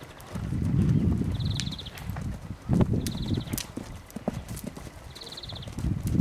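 Hoofbeats of a dun pony trotting on a sand arena surface. Swells of low rumbling noise come and go, and a short high trill recurs about every two seconds.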